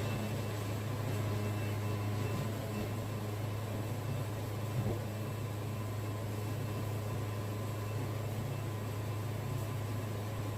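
Wood-Mizer sawmill's engine running at a steady pitch, with one brief knock about five seconds in.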